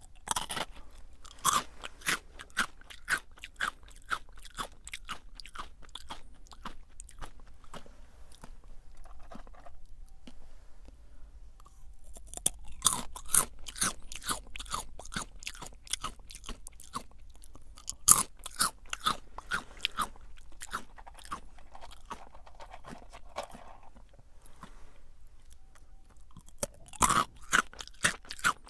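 Close-miked crunching and chewing of Jagarico, crisp fried potato-stick snacks, with sharp snaps as sticks are bitten through. It comes in bouts, easing off briefly about a third of the way in and again shortly before the end.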